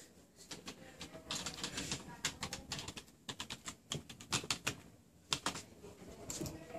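A child's fingers tapping on a computer keyboard: quick, irregular runs of key clicks.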